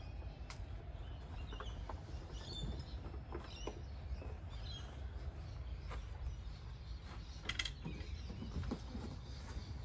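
Rotomolded plastic kayak hull creaking and knocking against the roof rack and side-loader bar as it is tipped off a car roof, in scattered clicks and creaks over a steady low rumble.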